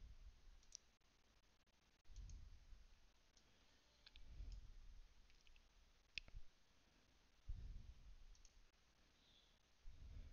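Near silence with a few faint, scattered clicks, like someone working a computer at a desk, and soft low thumps every couple of seconds.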